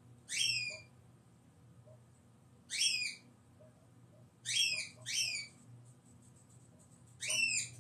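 High-pitched whistling chirps, each a quick upward-sweeping squeak, coming in six bursts: one, then one, then a pair, then a pair near the end.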